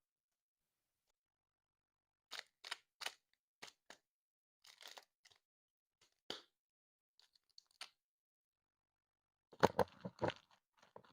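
Scattered short, soft clicks and crunchy crackles a few at a time, with a quicker cluster of louder ones near the end.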